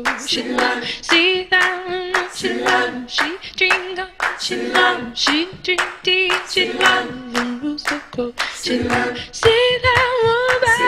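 Music: a woman's voice singing over a steady rhythm of hand claps.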